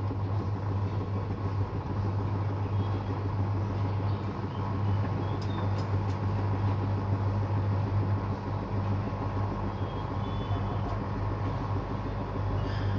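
Washing machine in its spin cycle at 800 rpm, running with a steady low hum and rumble. It is vibrating and shaking because it stands on the floor without anti-vibration pads.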